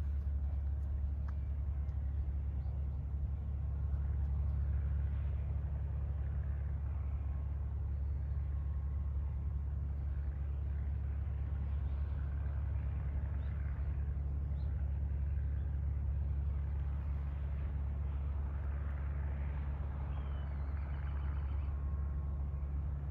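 Steady low engine rumble of a large ship and its tug getting under way in the harbour, an even hum with no change in pitch.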